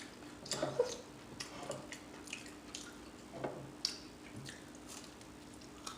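Close-miked mouth sounds of someone eating a beef and cheese taquito: soft, wet lip smacks and chewing clicks coming irregularly, a few a second at most.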